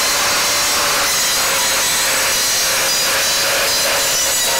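Evolution R255SMS 10-inch sliding miter saw, its 24-tooth carbide multi-material blade cutting down through pine with framing nails embedded in it. The saw makes steady cutting noise over a constant whine, with no stalling or change in pitch as the blade meets the nails.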